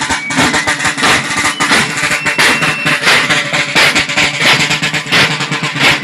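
Marching band playing outdoors-style march music, a rapid patter of drum beats over steady sustained notes.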